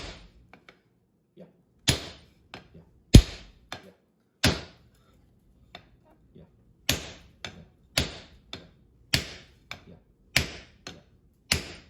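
Hammer blows on hot steel over an anvil: about eight heavy strikes a little over a second apart, with a longer pause in the middle, each followed by a few lighter taps.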